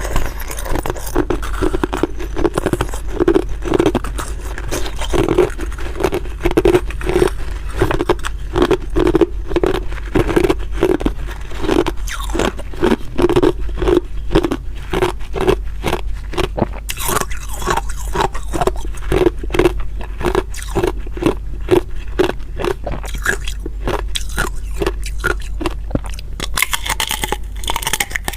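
Hard ice being bitten and chewed close to the microphone: a continuous run of sharp crunches and cracks over a steady chewing rhythm of about two chews a second.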